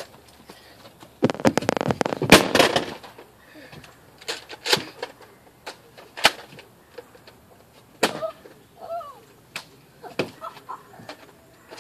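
Nerf blaster play: about a second in, a couple of seconds of dense rattling and clattering, then single sharp clacks and pops every second or two.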